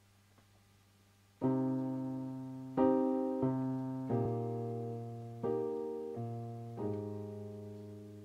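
A keyboard playing a piano sound: slow chords struck one after another, seven in all, each left to ring and fade into the next. A faint low hum comes first, and the first chord lands about a second and a half in.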